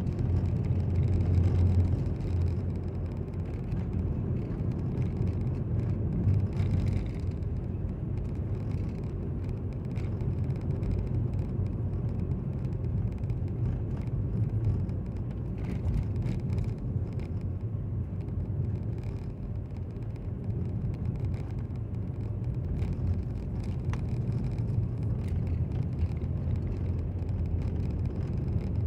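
A car driving on a paved road, heard from inside the cabin: a steady low rumble of engine and road noise.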